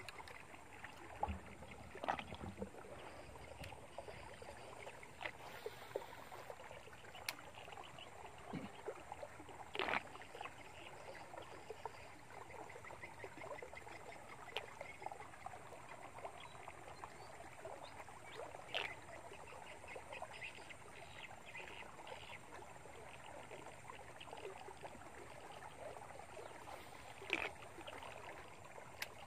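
Faint steady outdoor background hiss with a fine crackle through it, broken by a few brief sharp clicks or knocks spread across the stretch.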